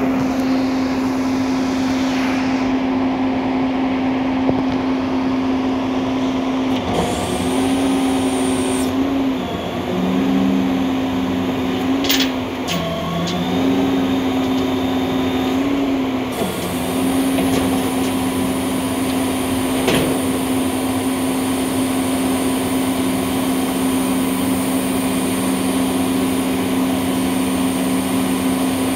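Hino skip-loader truck's diesel engine running with its hydraulics working the lifting arms as a skip bin is raised. The steady engine note dips and wavers several times between about 7 and 17 seconds as the hydraulics take load, with a few sharp clicks along the way.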